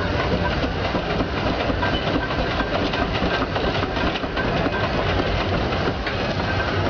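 Antique Case steam traction engine running as it drives slowly along, a steady mechanical noise with faint repeated knocks.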